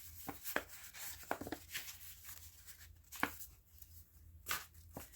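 Thin newspaper clippings being handled by hand: a few brief, scattered crackles and rustles of paper.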